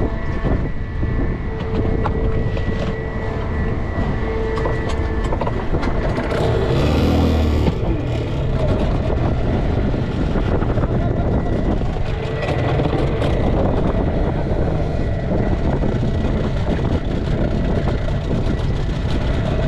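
Hangkai 12 hp outboard motor running steadily as the small boat moves across choppy water, mixed with wind on the microphone and water against the hull. A brief louder burst comes about seven seconds in.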